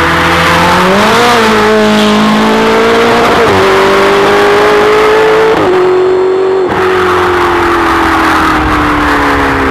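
Ferrari 488 GTB's twin-turbo V8 through a Capristo sports exhaust, loud under hard acceleration past the listener. Its note rises about a second in, holds high with two quick breaks like gear shifts, then slides steadily lower as the car pulls away.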